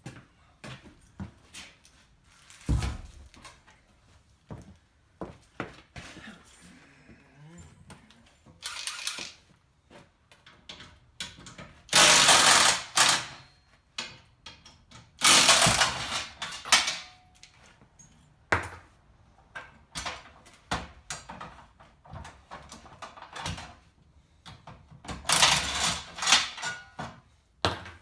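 Scattered metal knocks and clanks from work on stuck bus seat railings and bolts. Three louder bursts of a cordless power driver run for a second or two each, twice around the middle and once near the end.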